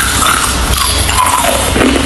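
Loud music playing, with the crunching of hard ice being chewed mixed in.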